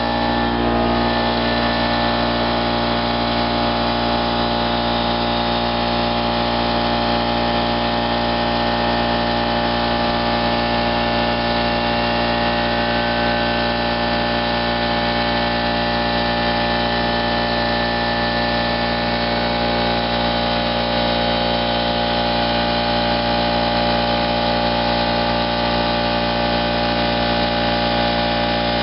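A machine's motor running steadily, an even drone with several fixed tones that does not change.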